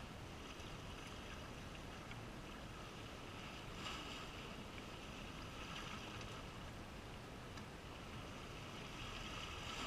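Steady seaside noise of wind and a calm sea, an even hiss that swells slightly about four seconds in.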